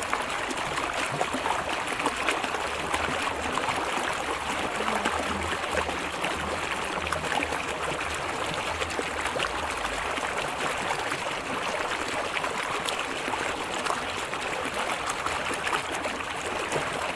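Steady rush of a small river's flowing water, with rain falling and many fine drop ticks over it.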